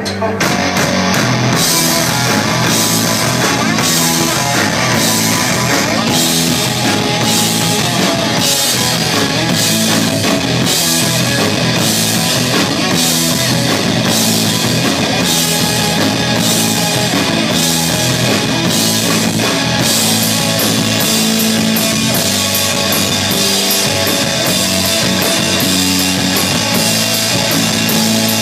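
Live rock band playing loud: electric guitar, bass guitar and a drum kit with cymbals struck in a steady beat.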